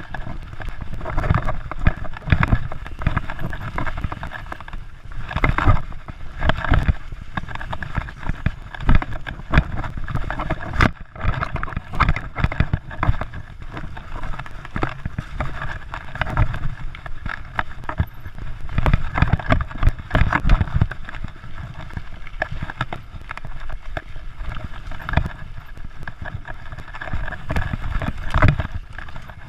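Mountain bike rolling fast over a dirt trail: steady tyre and rushing noise, thick with knocks and rattles as the bike hits bumps.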